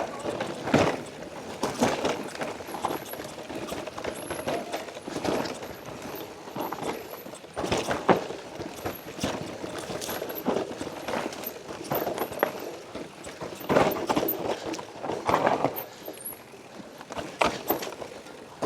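Mountain bike clattering over a rocky trail: irregular knocks and rattles as the tyres and frame hit stones.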